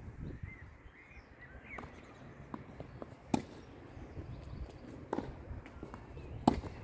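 Tennis ball being struck by rackets and bouncing on a hard court during a doubles rally: sharp pops about a third of the way in, again past the middle and loudest near the end, with lighter ticks in between.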